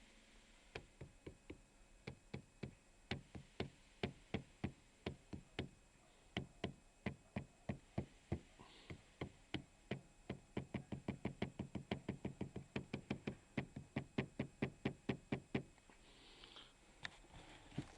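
Repeated sharp plastic knocks from a Lada Granta's rear interior trim (parcel shelf and rear pillar panels): the loose-trim cabin knocking. Dozens of knocks, spaced irregularly at first, then coming faster, about four a second, before stopping a couple of seconds before the end.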